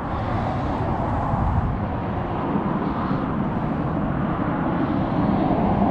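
Steady rumble of distant vehicle noise that slowly grows louder.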